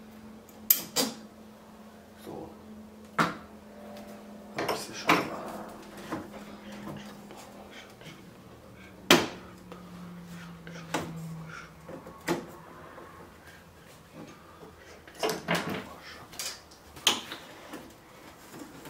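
Small metal tools and screws being handled against a TV's steel LCD panel frame on a wooden bench: a series of irregular clicks, clinks and knocks. The sharpest comes about nine seconds in.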